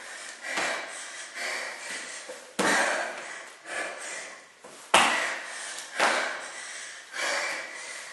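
A person doing burpees on an exercise mat over a tile floor: sudden thumps every one to two seconds as the body drops to the mat and the feet land, with hard breathing between. The loudest thump comes about five seconds in.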